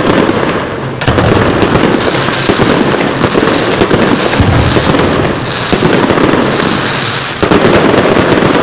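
Aerial fireworks barrage: shells bursting one after another with dense, continuous crackling. A fresh loud volley hits about a second in and another near the end.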